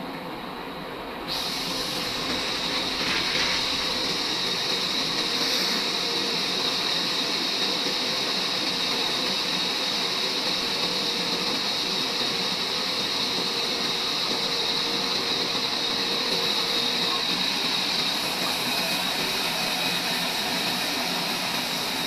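Horizontal band sawmill running and cutting lengthwise through a large log. About a second in, the sound steps up into a louder, steady high-pitched whine with hiss as the blade works through the wood.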